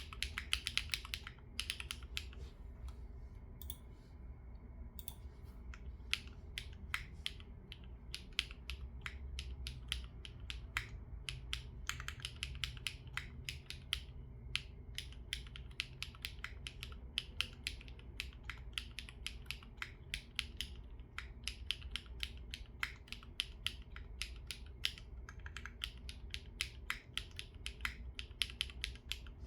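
Typing on a foamless Neo60 Core mechanical keyboard with GearPod Crepe linear switches and an FR4 plate: a fast, steady stream of keystroke clacks, thinning out briefly a few seconds in.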